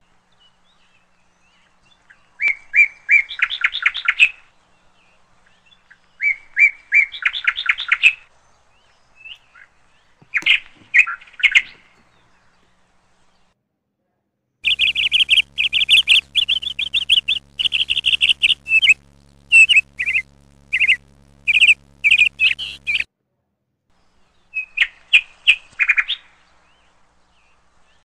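A bird chirping in short runs of quick, high notes, each a second or two long with pauses between, then a longer, busier stretch of chirping from about halfway in, over a faint low hum.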